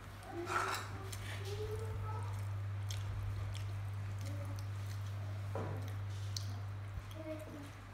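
Baby monkeys chewing and handling food, small wet smacks and clicks, over a steady low hum.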